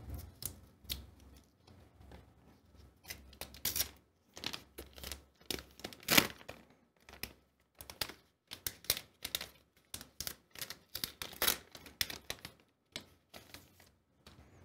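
Thin clear plastic packaging crinkling and tearing in irregular bursts as it is opened and the new trackpad flex cable is pulled out of it.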